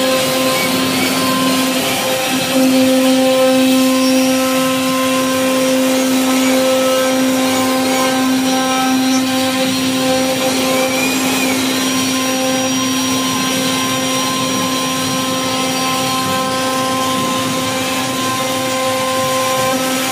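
CNC router spindle running with a steady whine while its bit carves a relief into a solid-wood door panel, the cutting adding a hiss; it gets a little louder about two and a half seconds in.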